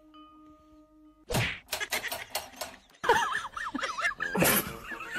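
A loud whack about a second in, followed by a few knocks, then a run of wavering, honking notes that wobble quickly up and down.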